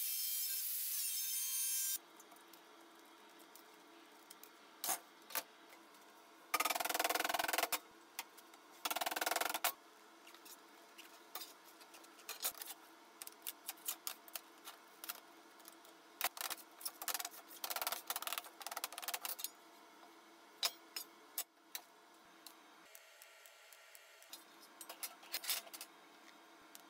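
Angle grinder with a cut-off disc cutting through steel plate, stopping abruptly about two seconds in. After that, the cut steel plates are handled on a steel welding table: scattered light knocks and rubs, and two loud, noisy scrapes one after the other.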